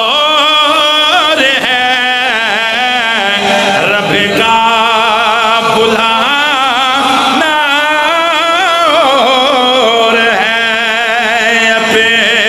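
A man chanting in a long, wavering melody with heavy ornamentation and vibrato, the notes held and bent rather than spoken.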